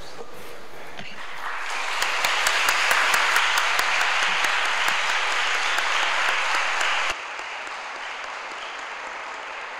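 Audience applauding at the close of a talk, building up over the first two seconds, then dropping suddenly to a fainter level about seven seconds in.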